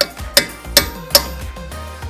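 Hammer striking a steel punch against the front wheel-bearing nut and index washer on the spindle: four sharp metallic taps about 0.4 s apart, each with a short ring, setting the wheel bearing. Background music plays underneath.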